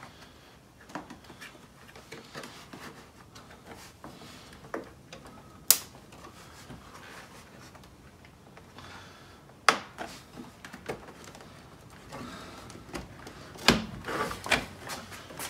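Plastic clips and tabs of a BMW M2's kidney grille clicking and creaking as they are pushed and worked by hand. There are sharp snaps about six and ten seconds in, and a quick run of knocks and clicks near the end.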